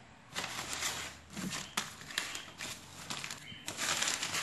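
Paper wrapping and packing tape being torn and crumpled off a cardboard parcel by hand: irregular rustling and crackling with a few sharp clicks, getting louder near the end.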